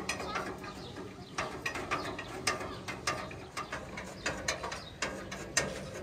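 Irregular metallic clicks and clanks of a steel charcoal grill being handled and fitted together by hand.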